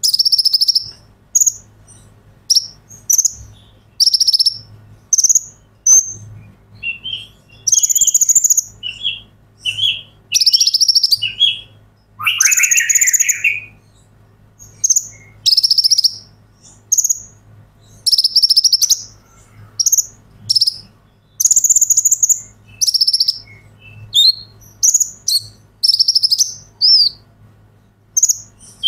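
A male Van Hasselt's sunbird (kolibri ninja) singing: short, high, rapid chirping and trilling phrases repeated every second or two, with a lower, fuller trill about twelve seconds in. A faint steady hum lies underneath.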